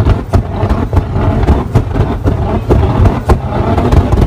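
Nissan GT-R's twin-turbo V6 exhaust running with a low rumble broken by a rapid, irregular string of loud pops and bangs as it shoots flames from the tailpipes.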